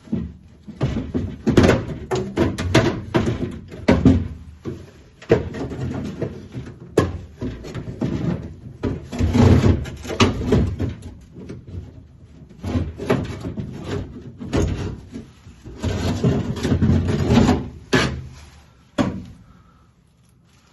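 Metal clunking and rattling in irregular bursts as a window regulator is worked loose and pulled out through a 1967 Mustang's steel door shell. The clatter stops about a second and a half before the end.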